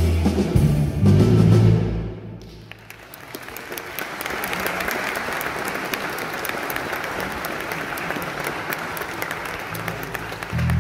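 A rock-style band with bass and guitars plays its last notes and stops about two seconds in. An audience then applauds steadily.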